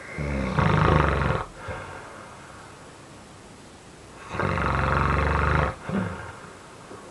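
A man snoring loudly: two long snores about four seconds apart, each lasting well over a second, with quieter breathing between them.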